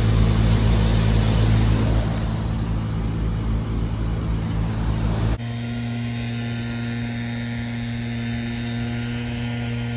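Car travelling, heard from inside: road and engine noise with a steady low hum. About five seconds in it changes abruptly to a quieter, steady hum.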